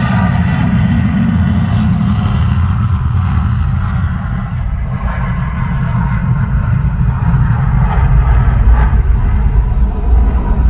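Fighter jet's engines roaring overhead. The higher part of the roar fades after a few seconds, leaving a heavy low rumble that swells again near the end.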